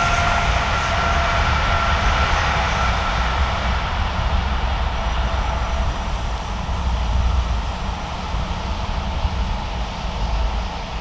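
An electric train passing on the main line and moving away, under a steady low rumble. Its high whine and hiss fade over the first few seconds.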